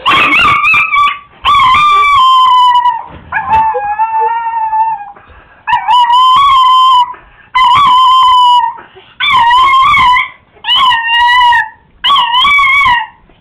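A Chihuahua howling from excitement: about eight drawn-out, wavering howls of roughly a second each, with short breaks between them.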